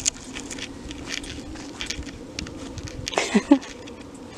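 Footsteps on dry garden soil with faint scattered clicks and rustles, and a short pitched sound a little over three seconds in.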